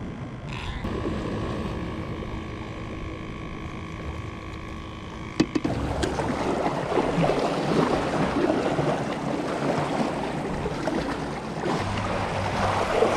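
A steady hum of several held tones, cut off by a sharp click about five seconds in. Then choppy seawater splashes and laps against the jetty rocks.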